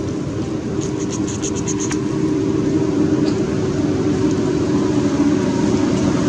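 Steady low rumble with a droning hum, like a motor running nearby. About a second in there is a quick run of faint ticks.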